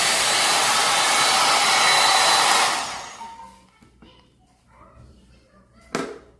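Handheld blow dryer running with a steady rushing noise, then switched off about two and a half seconds in and winding down. One sharp click near the end.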